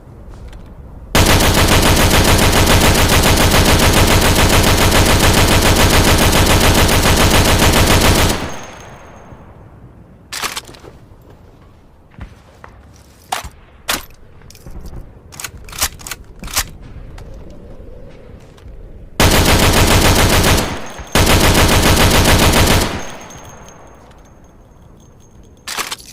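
Maxim machine gun firing in rapid automatic bursts: one long burst of about seven seconds, then a scatter of single sharp clicks, then two shorter bursts of about two seconds each near the end.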